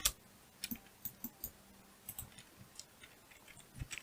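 Scattered, irregular clicks of computer keyboard keys and mouse buttons as Blender shortcuts are entered, with the sharpest click at the very start.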